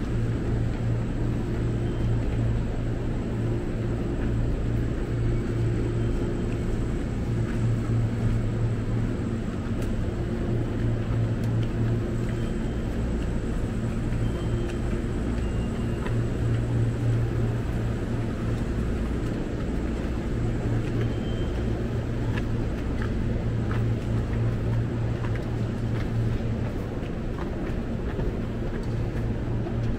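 Steady low mechanical hum of a busy station, with faint scattered clicks of footsteps as people climb the stairs.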